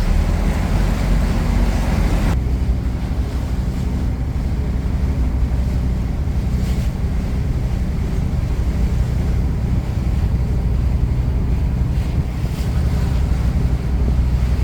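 Cruise boat's engine running under a steady low rumble of wind on the microphone and water along the hull. A louder hiss over the first two seconds stops abruptly.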